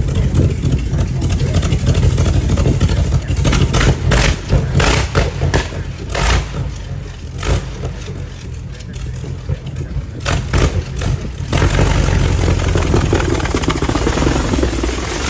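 A vintage racing car's big engine runs with a heavy low rumble and loud, irregular firing. It is revved in bursts from about three to seven seconds in and again around ten to eleven seconds, then runs steadier as the car pulls away.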